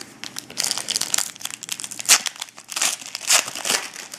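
Foil wrapper of a hockey card pack crinkling as it is torn open by hand, in a quick run of sharp crackly rustles starting about half a second in.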